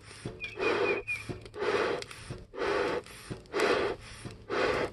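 Bee smoker bellows squeezed again and again, about one puff of air a second, each puff a short whoosh that fans the smouldering leaf fuel to build up its bed of coals.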